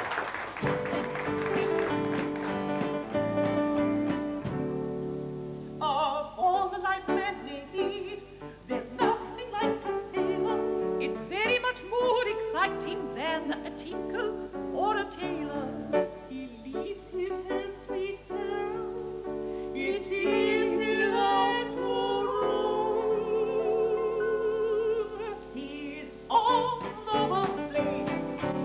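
A band plays a short introduction of held chords, then about six seconds in a voice comes in singing in a mock-operatic soprano style with wide vibrato, a man's falsetto, over the band accompaniment.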